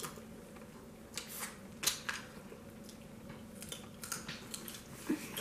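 Cooked crab shell being cracked and picked apart by hand, with a scatter of small, sharp cracks and clicks at irregular intervals.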